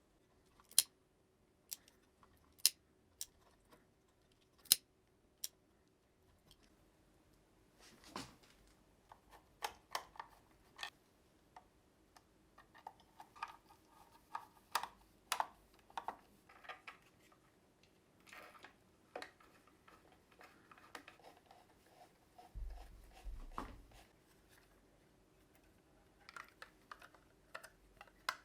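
A series of sharp clicks and taps with soft rustling between them, like small parts being handled on a workbench, over a faint steady hum.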